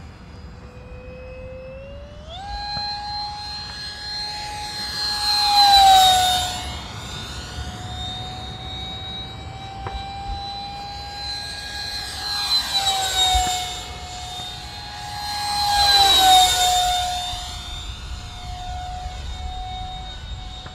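64 mm electric ducted fan of a foam RC F-16 jet whining in flight. The pitch steps up about two seconds in as the throttle opens, and the model makes two close passes, each swelling louder and dropping slightly in pitch as it goes by.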